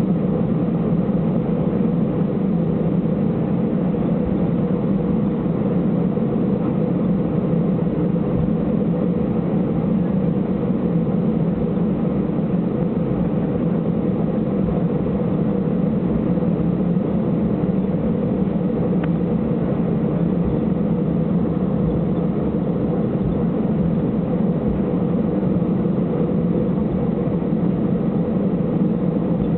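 Steady drone of an Airbus A320's jet engines at low thrust, heard inside the passenger cabin over the wing while the airliner taxis. The engine note holds even throughout, with no spool-up.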